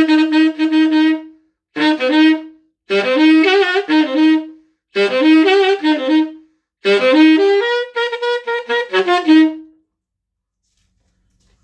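Cannonball Big Bell Stone Series Hotspur tenor saxophone played solo in short melodic phrases with brief pauses between them. The last and longest phrase ends about ten seconds in.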